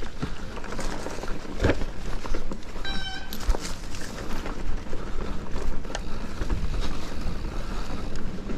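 Mountain bike riding over rough trail: steady tyre rumble with rattles and knocks from the bike, and a brief high squeak about three seconds in.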